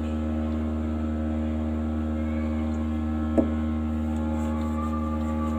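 Steady electrical hum with many even overtones, and a single short click about three and a half seconds in.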